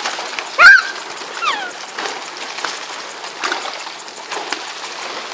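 Fish splashing and flapping in shallow water on a plastic tarp, with scattered small slaps and a steady spattering. About half a second in comes a short, loud high cry that bends up and then down, and a shorter falling cry follows about a second later.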